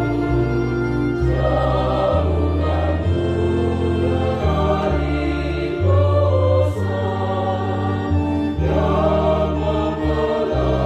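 Church choir singing held chords over steady low bass notes that change every second or two.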